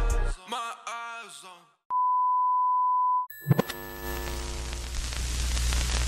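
Music cuts off and fades, then a single steady test-tone beep sounds for about a second and a half. Hissing static with a low hum follows as a glitch sound effect.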